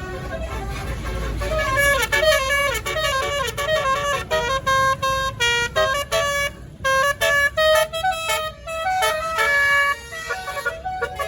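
Tour bus's Basuri telolet horn, a multi-tone air horn, playing a quick tune of stepped notes with short breaks between them, beginning about two seconds in. A low vehicle rumble sits under the first couple of seconds.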